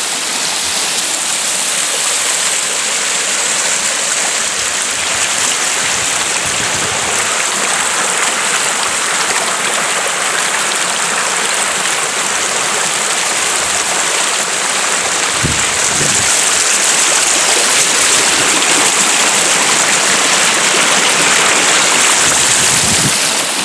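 River water rushing and babbling steadily over its bed, a little louder in the second half.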